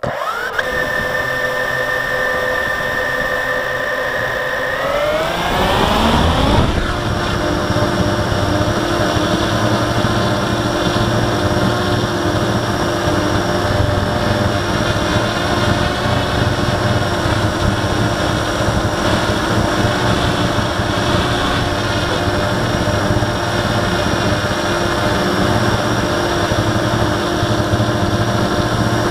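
Blade 350QX quadcopter's brushless motors and propellers, heard from its onboard camera: the motors spin up to a steady idle whine, rise in pitch about five seconds in as the throttle comes up for takeoff, then run steadily at climbing power.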